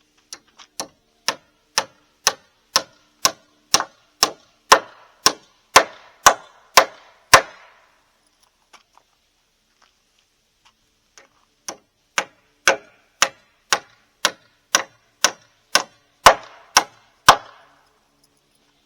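Hammer blows struck steadily about twice a second, in two runs of a dozen or more strikes with a pause of several seconds between; the blows grow louder through each run.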